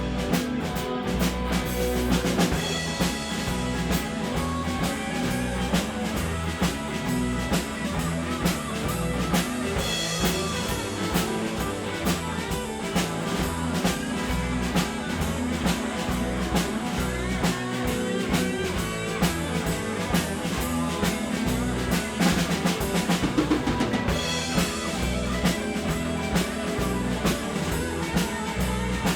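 Blues band playing an instrumental passage without vocals, the drum kit keeping a steady beat under the other instruments.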